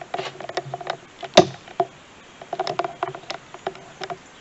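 Clicks and clatter of an AC manifold gauge set and its hoses being handled: a run of irregular hard taps and knocks, one sharper knock about a second and a half in.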